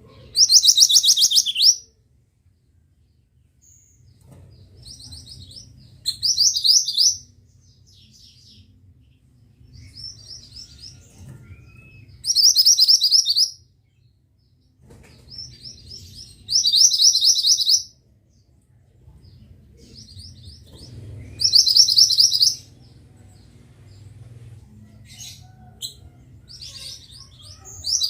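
A mantenan songbird singing the same short, high, rapid trill over and over, a little over a second each time and about every five seconds, with softer chirps in between.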